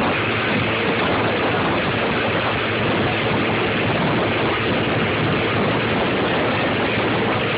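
Tow boat's engine running steadily under a constant rush of water noise.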